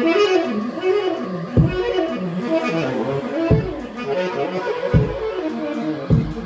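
Live improvised music of saxophone with electronic sounds: wavering, sliding pitched tones over four deep electronic kick thumps, roughly a second and a half apart.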